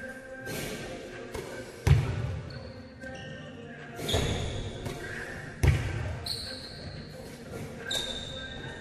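Basketballs bouncing on a hardwood gym floor, with two loud bounces about four seconds apart and fainter knocks between them, echoing in a large hall. Short high squeaks come and go.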